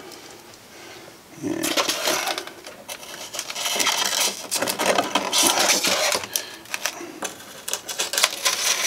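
Styrofoam pieces scratching and squeaking as they are handled and pushed into place with pins, with a quick run of small clicks and taps from about a second and a half in.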